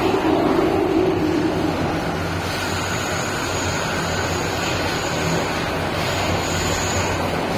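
Cabin noise of an MTR M-Train electric multiple unit running: a steady rumble and hiss of wheels on rail over a low hum. A heavier rumble eases off about two seconds in, and a faint high whine comes and goes.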